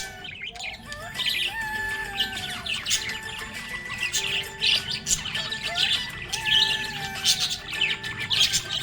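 Budgerigars chirping continuously in quick, short high chirps, over background music with long held notes.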